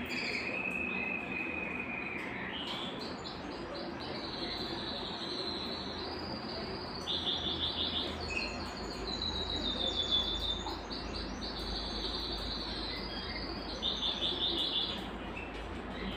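Belgian canary (domestic canary) singing one long, unbroken song. It opens with a held whistle, then runs into rapid trills of quickly repeated notes, with the loudest trill bursts in the middle and near the end.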